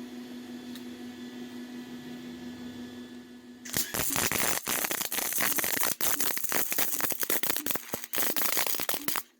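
Welding arc laying a bead on a steel mini-bike frame: after a few seconds of low steady hum, a loud, dense, irregular crackle starts about four seconds in and cuts off just before the end. This is the last weld, run with settings turned down from an earlier setting that was too hot and fast.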